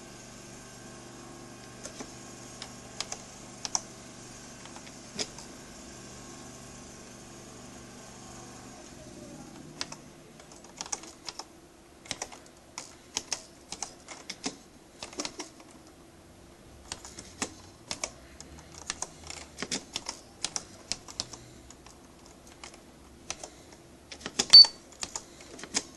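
Nakajima AX-65 electronic typewriter being typed on: sharp, irregular key clicks. For the first nine seconds or so there are only a few clicks over a steady hum; from about ten seconds in the clicks come in quick runs. One much louder clack comes near the end.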